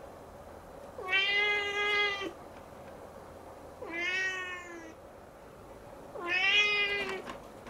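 Siamese kitten meowing three times, each a drawn-out call of about a second, a couple of seconds apart; the middle meow is softer.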